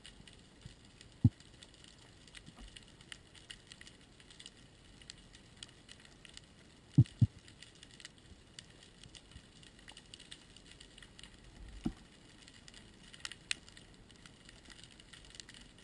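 Underwater reef ambience heard through a camera housing: a constant fine crackle of many tiny clicks, typical of snapping shrimp. A few short low knocks break in, a double knock about seven seconds in being the loudest.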